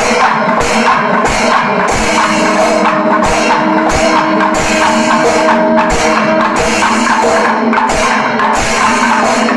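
Kerala Panchavadyam temple ensemble playing: timila hourglass drums beaten together with the clash of ilathalam cymbals, in a steady beat of about two strong strokes a second. A sustained tone is held over the beat for a few seconds in the middle.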